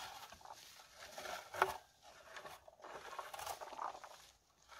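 Rustling of bilberry shrubs as berries are picked by hand into a plastic container, irregular crackling and patter with one sharper knock about a second and a half in.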